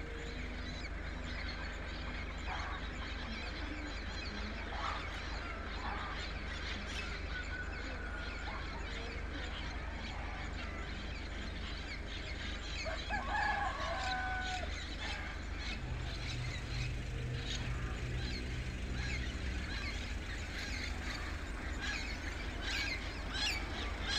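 Birds chirping and calling in a dawn chorus, with a rooster crowing once about halfway through. The chirps and squawks thicken near the end as birds fly overhead, over a steady low rumble of distant city noise.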